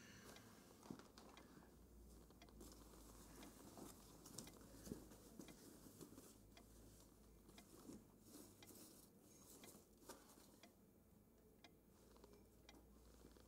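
Faint rustling of clothes and soft knocks of small toiletry items as a suitcase is packed by hand. Scattered light clicks come over the rustle, which fades about ten seconds in.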